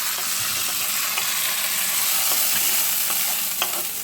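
Hot-oil tempering of mustard seeds, dals and curry leaves sizzling steadily as it is poured into the soaked rice-and-dal adai batter.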